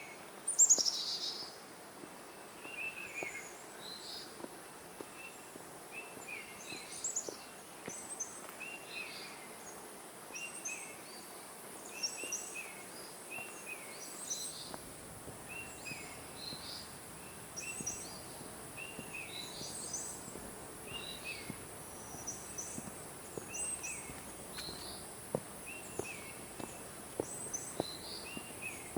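Forest birds calling over a steady high insect buzz: one bird repeats a short chirp about once a second while others add higher chirps, with a loud falling call about a second in.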